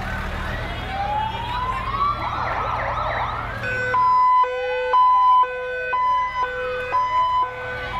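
Emergency vehicle sirens. In the first half, wailing sirens rise and sweep over one another above a low rumble. From about halfway, a hi-lo two-tone siren switches between two pitches about twice a second, with a wailing siren still sweeping underneath.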